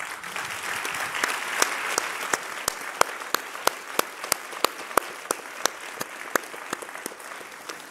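Audience applauding, the clapping swelling at once and then slowly thinning out. One loud clapper near the microphone stands out, clapping steadily about three times a second.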